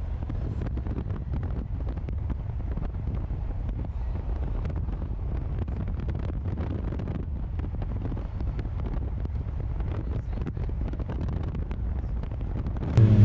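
Wind buffeting the microphone over the steady rumble of a pickup truck driving at highway speed. A much louder sound cuts in abruptly just before the end.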